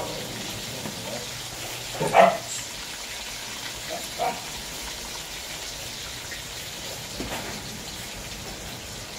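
Chicken intestines deep-frying in a wok of hot oil: a steady bubbling sizzle. A short louder sound comes about two seconds in and a fainter one about four seconds in.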